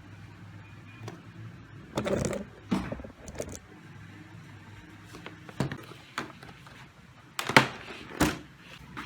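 Product packaging being handled and opened by hand: a series of irregular rustles, scrapes and knocks, the sharpest pair near the end.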